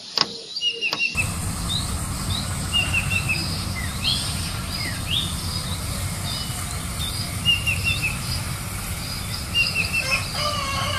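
Small birds chirping in many short, repeated calls over a steady low rumble from a rice combine harvester working the field at a distance. A steady humming tone comes in near the end.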